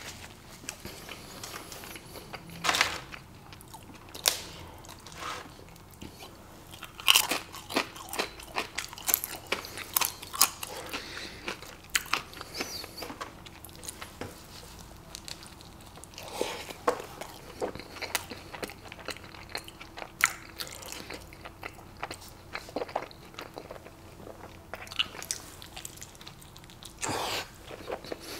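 Close-miked chewing and biting into a barbacoa burrito, with irregular sharp mouth clicks and smacks throughout.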